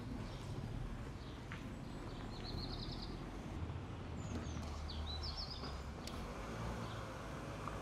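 Outdoor ambience: a steady low background rumble, with a small bird chirping in short high trills about two and a half seconds in and again about five seconds in.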